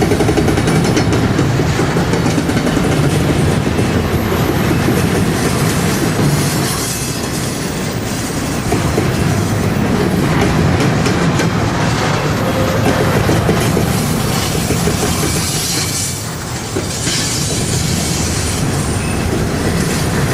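Railroad cars rolling past, wheels clattering over the rail joints in a steady loud rumble, with some wheel squeal.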